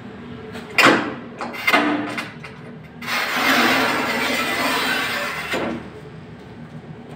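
QEP 50-inch manual rail tile cutter scoring a large ceramic tile: two sharp knocks as the cutting head is set on the tile, then the scoring wheel drawn along the glazed surface for about two and a half seconds, a steady gritty scratch.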